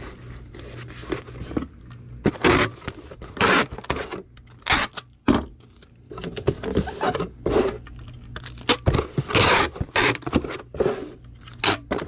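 Cardboard and paper being handled for packing: an irregular series of scrapes, rustles and short knocks as a small shipping box is fetched and a postcard is put into its mailer.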